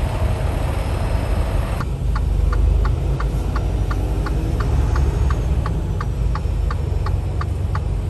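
Semi truck's diesel engine running low and steady as the truck creeps forward, with the cab's turn-signal indicator clicking about three times a second from about two seconds in.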